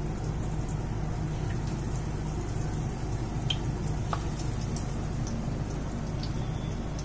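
Besan-battered bottle gourd slices frying in hot oil in a kadai: a steady sizzle with scattered small pops and crackles, over a constant low hum.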